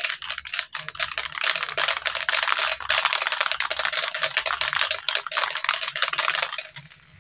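Diton aerosol spray paint can being shaken hard, the mixing ball inside rattling in rapid clicks. The rattling stops near the end.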